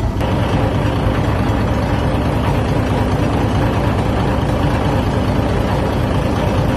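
Ferry's engine idling with a steady low hum, which gets louder and brighter right at the start and then holds even.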